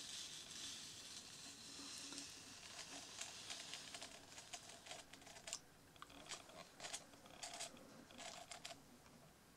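Near silence: faint room tone with scattered soft clicks and rustles.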